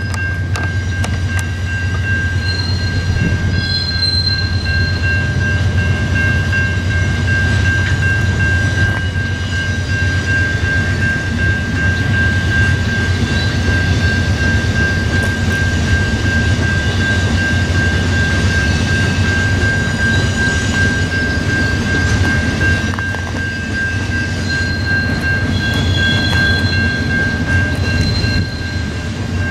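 Train of iron-ore hopper cars rolling past: a steady low rumble of steel wheels on rail, with a constant high-pitched tone over it.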